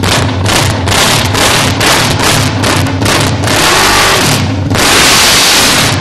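A Honda CB500's parallel-twin engine, its muffler removed so it runs on the bare pipe, revved very loudly indoors in quick throttle blips, about four a second. Near the end it is held at high revs twice, about a second each time.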